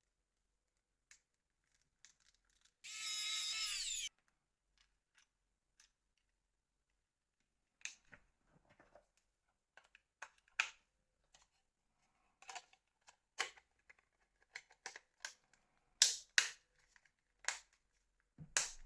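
Plastic phone body shell parts being handled and pressed together: a short scratchy rasp about three seconds in, then a series of irregular small plastic clicks and snaps.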